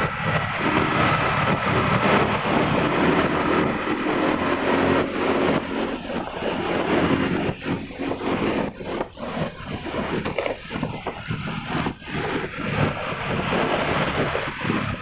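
Vehicle engine running while travelling along a road, with road and traffic noise and wind buffeting the microphone.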